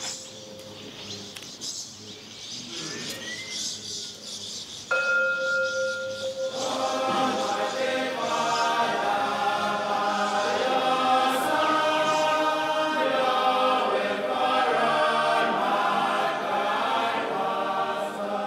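A ringing bell tone hangs in the air and is struck again about five seconds in; then a choir of voices starts singing together, growing fuller and holding on.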